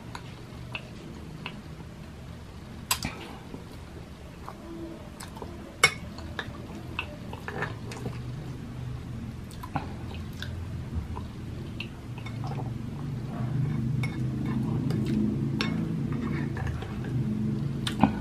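Close-up eating sounds: chewing of thick chocolate rice porridge (champorado), with a metal spoon clicking against a glass bowl a number of times. A low rumble grows louder in the last few seconds.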